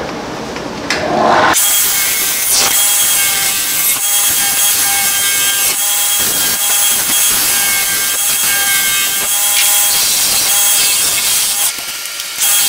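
Wood lathe spinning a blank while a turning tool cuts into the wood. About a second and a half in, a loud, steady hissing scrape of the cut starts, with the lathe motor's whine as steady tones underneath.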